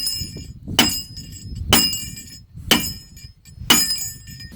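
Hammer blows on steel, driving a backhoe hydraulic cylinder rod into its barrel: four sharp strikes about a second apart, each with a metallic ring.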